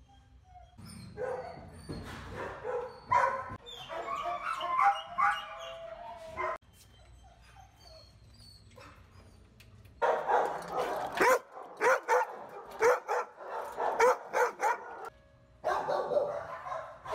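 Dogs barking and yipping in shelter kennels, in short repeated barks: one spell from about a second in, a lull, then a second, choppier spell from about ten seconds in, with a few more barks near the end.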